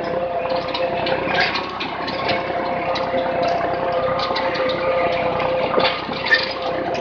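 IMT 539 tractor's diesel engine running at a steady note under load, pulling a Rau seedbed cultivator through tilled soil, heard from the driver's seat. Irregular rattles and clanks come from the harrow's tines and frame, with one sharper knock a little after six seconds in.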